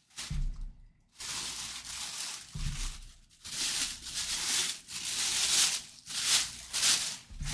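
Clear plastic bag crinkling and rustling in repeated bursts as the football helmet inside it is handled and turned. A few dull low thuds mark the helmet being bumped or set down.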